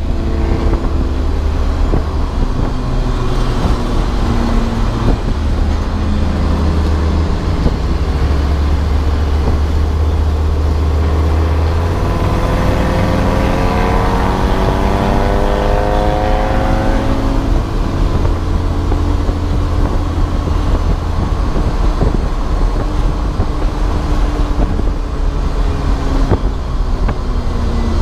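Race car engine running hard on track, its pitch climbing and falling repeatedly as it accelerates and shifts, over a loud, steady low rumble.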